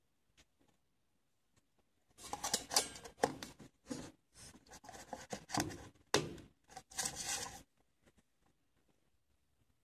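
Close handling noise at a counter: a run of rustling, scraping and clicks from about two seconds in until near the end, as hands work right by the microphone and fit a plastic lid onto a paper coffee cup.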